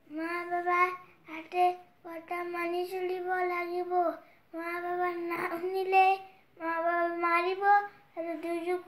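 A child singing: a string of held, melodic phrases of one to two seconds each, with short breaks for breath between them.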